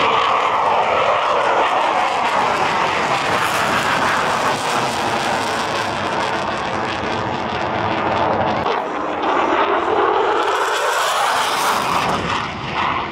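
Loud jet noise from USAF Thunderbirds F-16 fighters in flight, swelling and fading in slow sweeps as they pass. The low rumble thins about nine seconds in, then the noise swells again.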